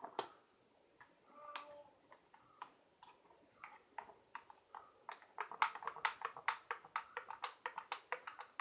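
Metal spoon clinking against a drinking glass while stirring spiced buttermilk: scattered ticks at first, then a quick run of about four clinks a second from about five seconds in.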